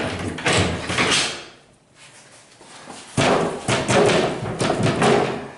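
Metal hasp and lid of a padlocked box rattling and clanking as someone yanks at it, trying to force it open. There are two spells of rattling: one at the start and another from about three seconds in, with a quiet gap between.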